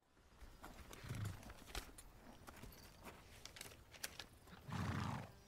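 A horse stepping slowly, its hooves clopping on the ground, with a louder blow from the horse near the end.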